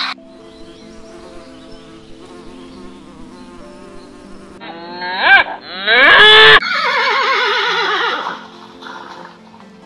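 Honeybees buzzing in a steady low hum. About five seconds in, a horse whinnies loudly, first sweeping up, then falling away in a wavering neigh that lasts about three seconds.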